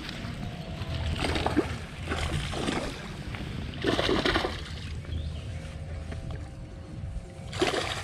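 Water splashing and sloshing against a bass boat in about four short bursts, over a steady low rumble.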